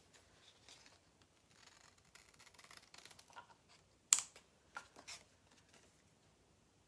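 Scissors cutting a silkscreen transfer sheet: quiet rustling of the sheet with a few sharp snips, the loudest about four seconds in.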